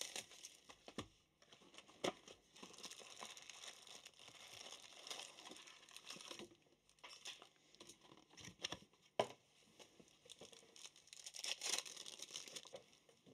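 Quiet crinkling and tearing of plastic shrink wrap being pulled off a box of trading-card packs, then foil card packs rustling as they are handled and opened, with a few sharp clicks along the way.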